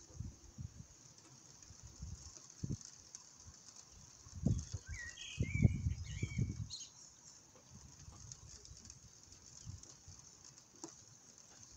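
Steady hiss of rain, with a small bird chirping a few short, rising notes about halfway through. Irregular low thumps come and go, heaviest around the middle.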